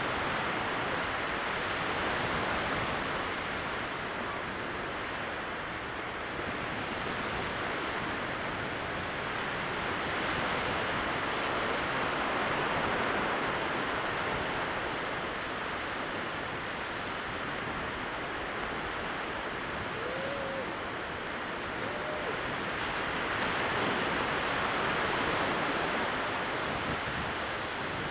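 Sea surf at low tide: small, distant waves breaking and washing over the sand flats, a steady hiss that swells and eases every several seconds.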